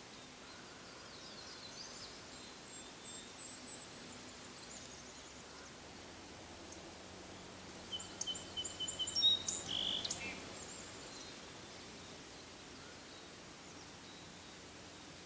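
Small forest birds calling with short, high-pitched chirps and trills, faint at first, then a louder, closer flurry of chirps about halfway through.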